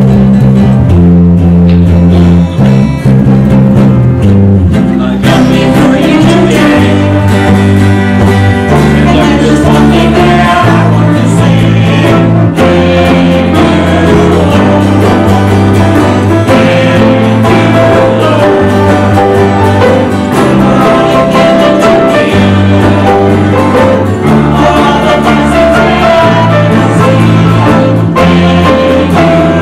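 Offertory music: a band with guitar and bass playing a song at full level, the sound filling out about five seconds in.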